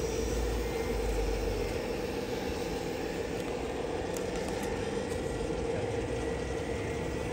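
Radio-controlled model construction machinery running: a 1:14 hydraulic excavator and a model dump truck giving a steady electric whine.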